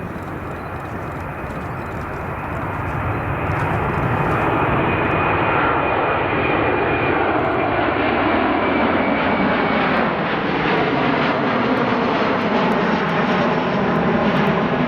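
Jet airliner's engines at takeoff thrust, a loud roar that builds over the first few seconds and then holds steady.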